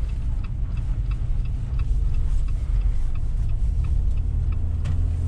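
A car driving along a road, with a steady low rumble of engine and tyres. Faint light ticks come through now and then.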